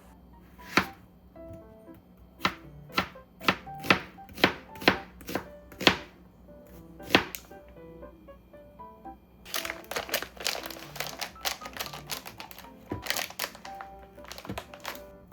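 Knife chopping on a cutting board: single strokes about two a second, then a fast run of quick chops near the end, over soft background music.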